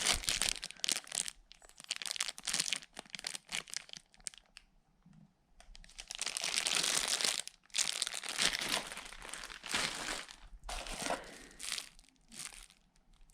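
Plastic packaging crinkling and rustling in bursts as radio accessories are handled and unwrapped, with a short pause about four seconds in and a longer, denser stretch of rustling a little after the middle.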